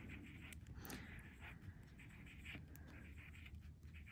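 Faint scratching of a metal-tipped stylus rubbed over aluminium metal tape, with a few light clicks, as the foil is pressed around raised string.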